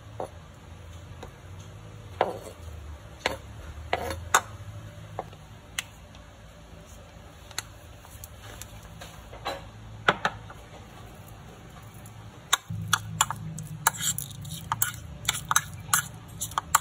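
Scattered clicks and knocks of a utensil against a bowl as chopped hard-boiled egg is scraped in and mayonnaise is added. Near the end comes a quick run of taps as the egg is mixed, over a low hum.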